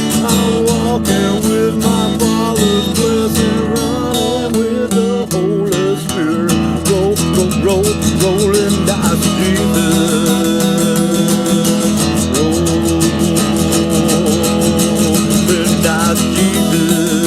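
Instrumental song break: strummed acoustic guitar with a wavering lead melody over a steady beat.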